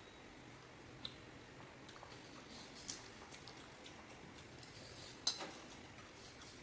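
Light clicks and taps from handling food and dishes, with a sharper click about a second in and the loudest one about five seconds in.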